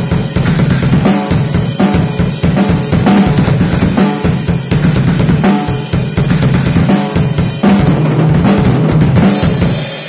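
Acoustic drum kit played hard and fast: bass drum and snare hits with cymbal crashes in a dense beat, which stops abruptly at the very end.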